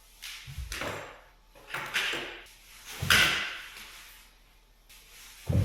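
A series of separate knocks and clatters, each dying away quickly, about one a second, the loudest about three seconds in.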